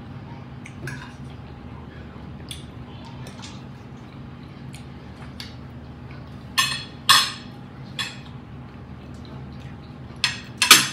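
Fork clinking and scraping on a plate during a meal, with small scattered clicks and a few sharp, louder scrapes or clinks, two about two-thirds of the way through and two near the end, over a steady low hum.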